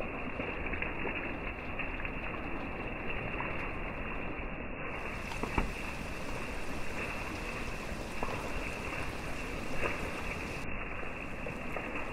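Steady rain falling on forest foliage: an even hiss dotted with small drop taps, and one sharper tap about five and a half seconds in.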